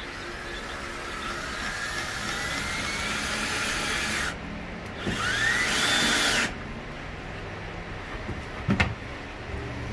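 Power drill running in two bursts while fastening a gas strut's angle-iron bracket to a plywood bed lid: a run of about four seconds with the motor whine slowly rising, a pause, then a shorter, louder run whose whine climbs higher. A sharp knock near the end.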